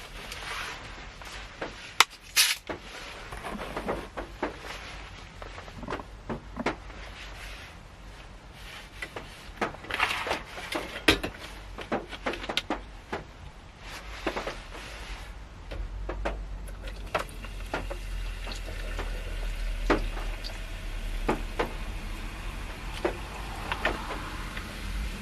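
Scattered small knocks, clicks and rustles of things being handled at close range, like items being picked up, set down and opened. About two-thirds of the way through, a low steady rumble comes in beneath them.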